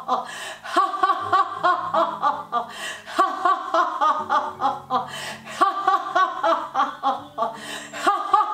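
A woman laughing hard and deliberately, as in laughter yoga, in a rapid run of 'ha-ha-ha' bursts, with background music underneath.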